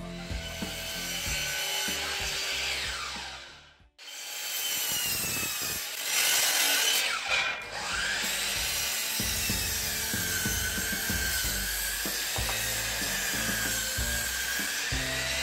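DeWalt DWS780 12-inch sliding miter saw cutting through three stacked 4x4 timbers in a single pass, its 15-amp motor whining over the rasp of the blade in the wood, the whine wavering in pitch with the load. The sound drops out briefly about four seconds in, then the cutting carries on.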